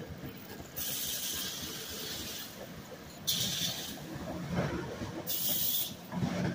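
NJ Transit passenger train rolling slowly past with a low rumble from the coaches on the rails, broken by three sharp bursts of air hissing from its air brakes as it slows to a stop.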